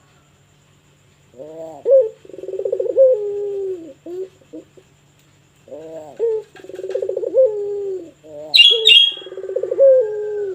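A puter dove of the pelung type cooing in three long phrases. Each phrase opens with short rising notes, runs into a rolling, pulsed coo and ends on a falling note. Near the end a brief high chirp sounds over the third phrase.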